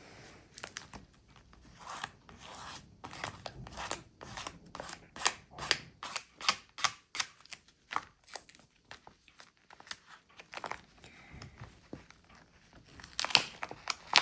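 A small toy comb stroked repeatedly over the hair of a handmade squishy-book doll: a run of short, scratchy strokes at an uneven pace of about two or three a second, a little louder near the end.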